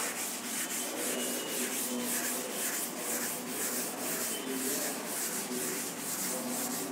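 Chalkboard eraser wiping chalk off a blackboard in quick back-and-forth strokes, a rhythmic scrubbing hiss.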